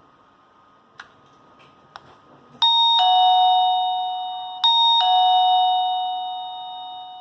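Doorbell chime sounding a two-note ding-dong twice, a high note then a lower one each time, the second dying away slowly. Two faint clicks come before it, from the button being pressed, while the doorbell is on mains power.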